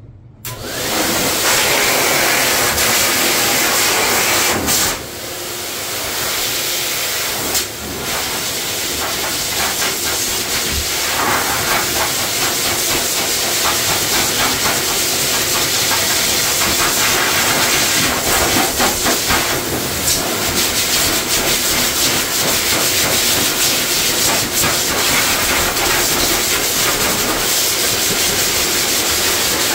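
Pet grooming force dryer blowing a loud, steady rush of air through its hose onto a wet cat's coat to drive the water out after a bath. It starts about half a second in, with short dips about five and eight seconds in.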